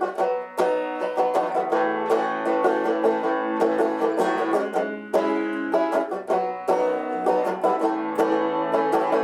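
Fender Rustler six-string banjo, a guitar-style banjo with a closed mahogany back and brass tone ring, played in a steady run of picked notes, several a second, each ringing briefly.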